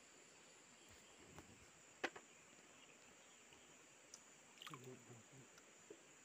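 Near silence with a faint steady high tone, broken by a single sharp click about two seconds in and a brief faint low sound near the end.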